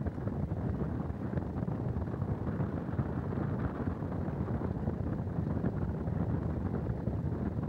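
Wind buffeting an outdoor microphone: a steady low rumble.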